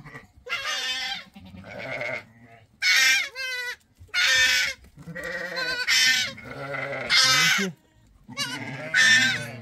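Goats in a crowded pen bleating over and over: many loud, quavering bleats, one after another with short gaps, some overlapping.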